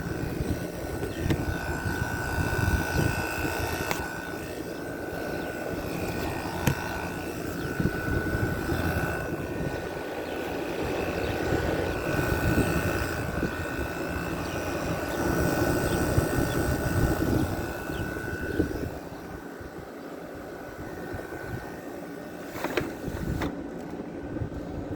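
Outdoor side of a Panasonic window air conditioner running: its Matsushita rotary compressor and condenser fan making a steady rumble with a thin, even whine. The whine fades about three-quarters of the way through and the sound gets a little quieter.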